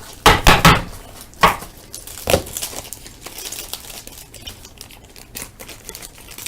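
Foil wrapper of a baseball card pack crinkling and tearing, with a few sharp crackles in the first couple of seconds and softer rustling after.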